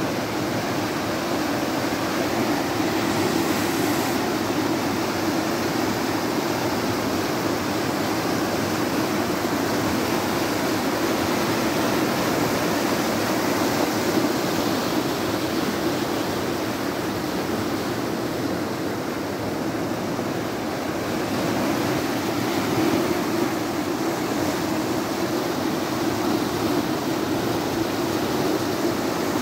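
Muddy floodwater rushing down a stony channel: a loud, steady rushing without breaks.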